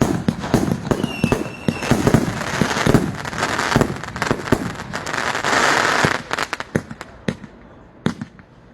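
Consumer aerial fireworks going off in a dense run of bangs and crackling, heaviest in the middle, then thinning to a few scattered pops near the end.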